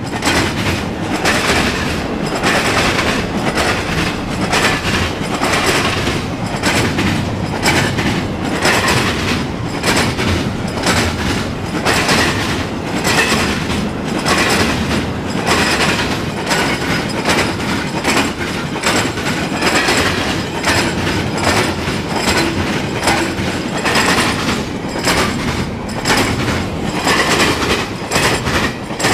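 Intermodal freight train rolling past, its double-stack well cars and trailer flatcars going by steadily with the wheels knocking over the rail joints in a fast, uneven stream of clicks over a constant rumble.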